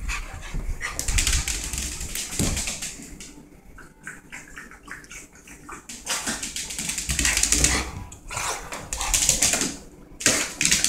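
A rat terrier scurrying about, its claws clicking and scrabbling on the floor in several noisy spells, quieter in the middle.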